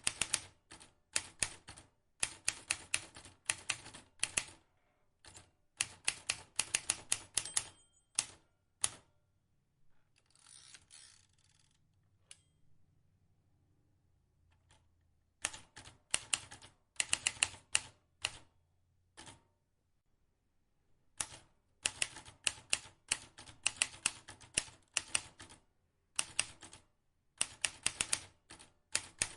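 Vintage manual typewriter being typed on: runs of sharp key strikes, several a second, in bursts. A lull of a few seconds near the middle is broken by a short rasp.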